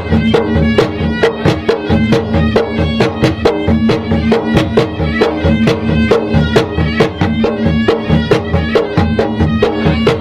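Traditional Makassar gendang drums beating a fast, dense, steady rhythm, with a reedy wind instrument holding a melody over the drumming.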